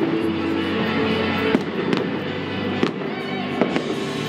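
Aerial fireworks shells bursting in a run of sharp bangs, about a second apart, over music playing.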